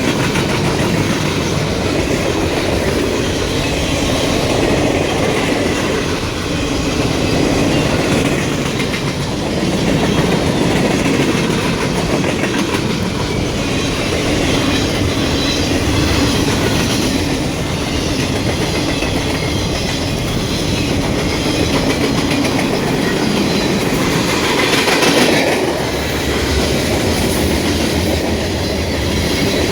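Freight train cars rolling past, a steady rumble with wheels clattering over the rail joints, swelling briefly a little before the end.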